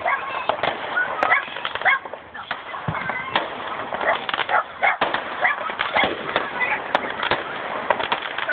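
Outdoor crowd at a fireworks display: short squawky shouts and calls, mixed with frequent sharp cracks and pops.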